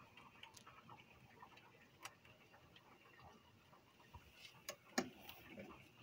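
Near silence: quiet room tone with a few faint, irregular ticks and clicks, the loudest about five seconds in.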